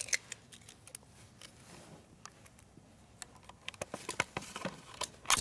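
Scattered light clicks and taps of a tape measure being pulled out and handled, with a sharper click near the end.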